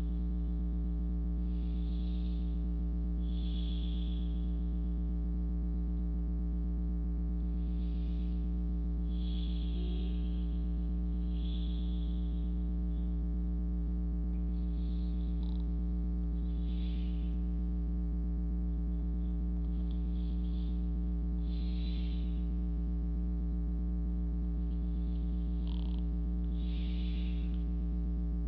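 Soft breaths close to the microphone, a short puff about every one to two seconds, over a steady low electrical hum that is the loudest thing throughout.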